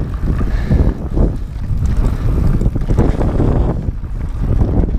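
Wind rumbling over the microphone of a chest-mounted camera as a mountain bike rolls fast down a dirt trail, with the tyres rumbling on the dirt and the bike rattling unevenly over bumps.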